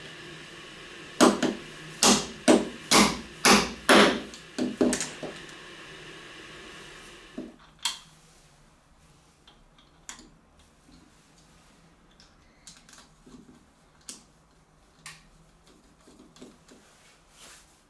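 Hammer striking a pair of pliers to drive a ball bearing down onto a steel shaft: about nine sharp metallic taps, roughly two a second, over some four seconds, then two more knocks. After that only faint clicks from a screwdriver tightening a nut on a plywood wheel.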